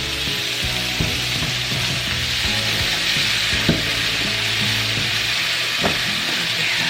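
Cornstarch-coated beef strips sizzling steadily in hot oil in a frying pan, with a few light knocks.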